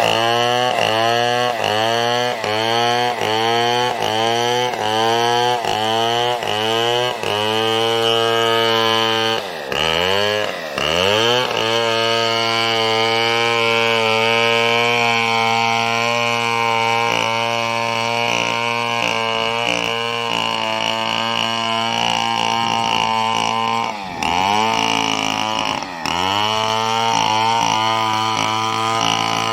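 Chainsaw cutting a coconut trunk into lumber, running at high speed under load. For the first several seconds its speed swings up and down in a quick rhythm, then it holds steady at full throttle, dropping toward idle briefly about ten seconds in and again near the end.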